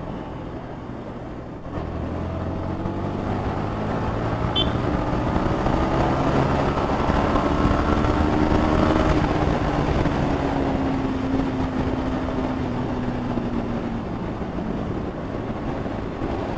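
Yamaha XSR155's single-cylinder engine under way, opening up about two seconds in and climbing steadily in pitch as the bike gathers speed, then easing off slowly.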